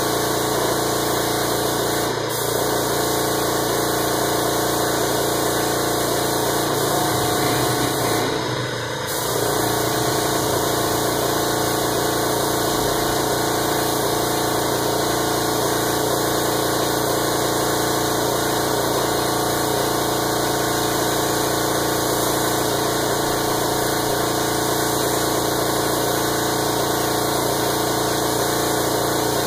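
A spray gun hisses steadily as it lays down clear coat, over the constant hum of a small tankless direct-air compressor (a 'tufão'). Having no reservoir, the compressor runs the whole time it feeds the gun. The hiss dips briefly around eight seconds in.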